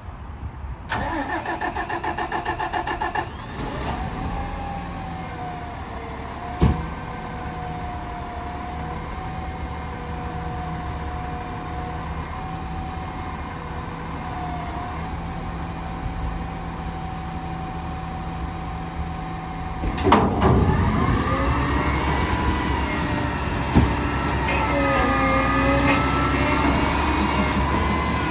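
McNeilus garbage truck's diesel engine and hydraulics running, with a steady whine over the engine rumble and one sharp knock. About twenty seconds in it gets louder, the whine rising and falling in pitch as the engine and hydraulics work harder.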